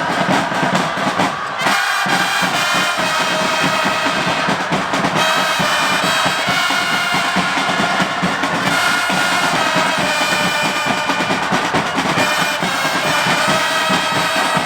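Football supporters' stand with drums beating and a brass horn playing a sustained tune over the massed crowd, starting after a brief dip under two seconds in.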